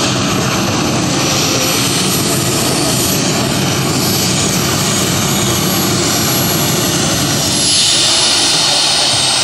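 Modified pulling tractor's engine running hard under load as it drags the weight-transfer sled down the track. About eight seconds in, a high whine falls steadily in pitch.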